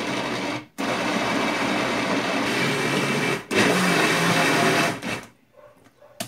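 Countertop blender pureeing a jar packed with cooked cassava and broth, run in several spells with brief pauses between them, stopping about five seconds in. The load was too heavy for the blender, so the batch had to be split.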